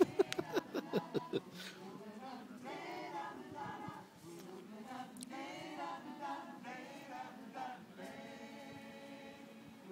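A choir singing, fairly faint. In the first second and a half there are a few short, sharp, louder sounds close by.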